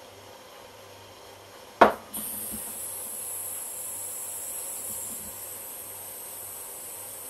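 A sharp click, then a steady high-pitched hiss of gas from a handheld butane tool, easing slightly about five seconds in.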